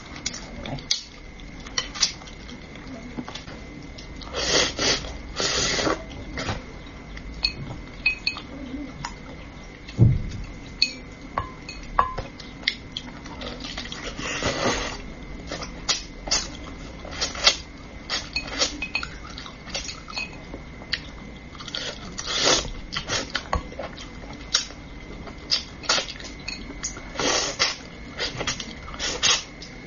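Eating sounds of a person picking at braised fish with chopsticks: many sharp clicks of chopsticks and bones against a plate and bowl, with several longer sucking and slurping sounds of about a second each.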